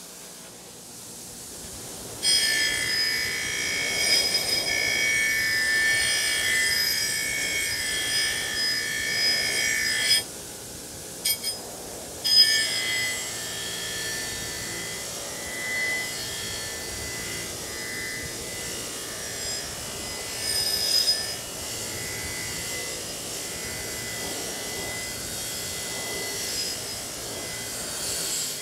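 A motor-driven wire wheel scrubbing rust off a True Temper Kelly Perfect double-bit axe head. The wheel runs softly for about two seconds, then the steel bit is pressed on and it gives a loud, high ringing squeal. About ten seconds in the squeal stops for a couple of seconds, broken by a few short bursts, then carries on more softly to the end.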